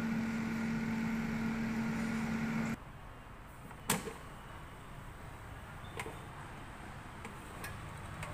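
Philips air fryer running with a steady fan-motor hum, which stops abruptly about three seconds in. This is followed by a sharp click about a second later and a few lighter clicks as the fryer's basket drawer and handle are handled.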